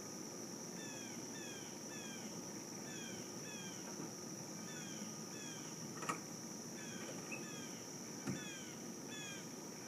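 Summer outdoor ambience: a steady high-pitched insect drone, with a bird calling over it again and again in pairs of short falling notes. A sharp click comes about six seconds in, and a soft knock about two seconds later.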